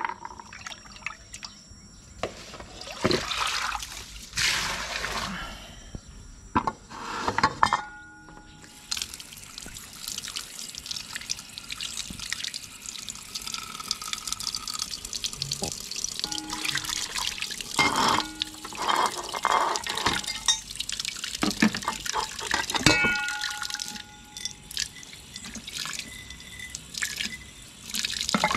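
Water splashing in basins as a rice pot and dishes are rinsed by hand. About a third of the way in, a steady stream of water starts falling into a bucket, with occasional knocks of pots and plates.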